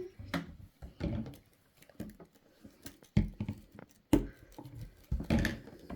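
Slime being stirred with a stick in a small pot: irregular taps, clicks and soft knocks of the stick against the pot, with a few louder thumps.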